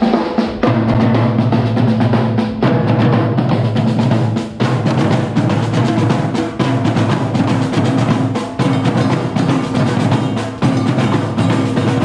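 Background music with a steady, heavy drum beat and deep bass notes.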